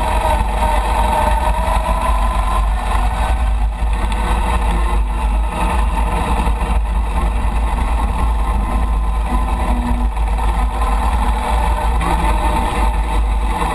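Chang Jiang 750 sidecar motorcycle's flat-twin (boxer) engine running steadily at low road speed, heard from on board the bike.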